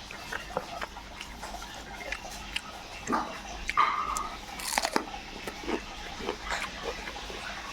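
A person biting and chewing pork close to the microphone, with irregular crunches and wet mouth clicks. A short whine is heard about four seconds in.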